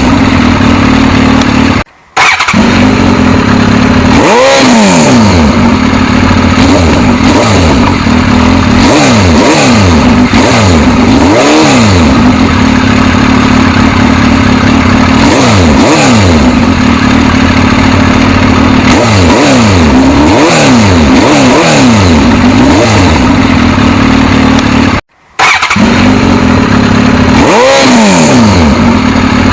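Suzuki GSX-S1000 superbike's inline-four engine running loudly, idling with repeated throttle blips that send the revs up and back down. The sound cuts out briefly twice, about two seconds in and again near the end.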